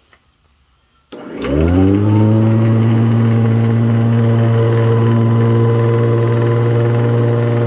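Hoover commercial upright vacuum switched on with a click about a second in; its motor and brush roll spin up with a rising whine over about a second, then run at a steady, loud pitch.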